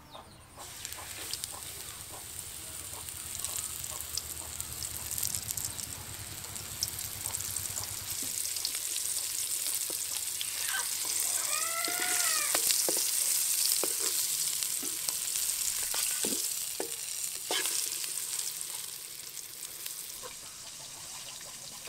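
Flour-coated fish frying in hot refined vegetable oil in an aluminium kadai: a steady sizzle with crackling. It grows louder toward the middle and eases off near the end.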